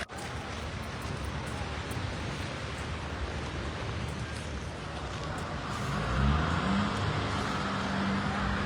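Steady outdoor noise, then, about six seconds in, a motor vehicle's engine rising in pitch and settling into a steady hum.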